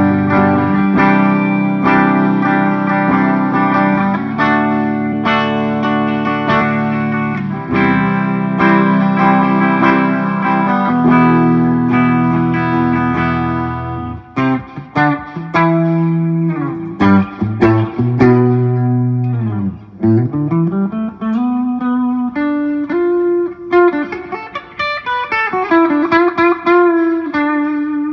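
Knaggs Kenai electric guitar played through a Marshall JCM 2000 valve amplifier. Ringing chords for about the first half, then single-note lines with string bends, ending on a held note that bends down and fades out.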